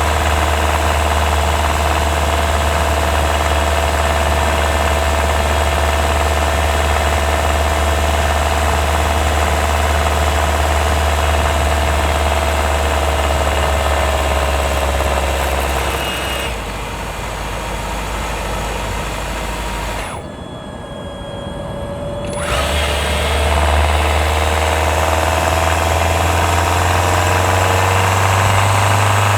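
Hyundai Tucson Hybrid's 1.6-litre turbo petrol engine running, heard close up from a microphone fixed on top of the engine. About 16 seconds in it weakens and falls almost silent for a couple of seconds, as the combustion engine shuts off, then starts again, and its pitch rises near the end.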